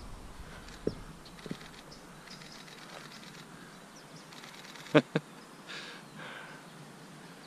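Quiet outdoor ambience with faint, thin calls that may be distant birds. Two brief pitched sounds come close together about five seconds in, louder than anything else.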